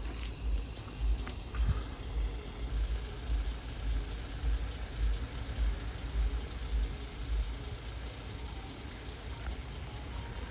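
Crickets chirping in a fast, even pulse, over a low, uneven rumble.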